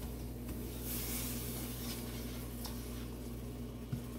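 Faint steady hiss from the stovetop pot of dark sugar heating and melting into browning, over a low electrical hum, with a light tick near the end.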